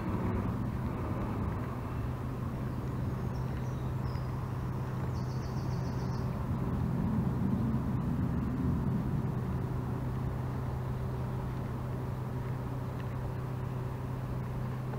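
Steady low hum and rumble, even throughout, with a short, fast high trill about five seconds in.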